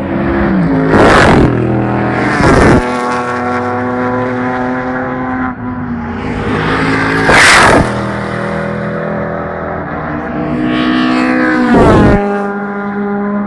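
Historic racing cars passing at full speed, four loud pass-bys: about a second in, near three seconds, in the middle and near the end. Each engine note drops in pitch as the car goes by, with engines still heard running down the straight in between.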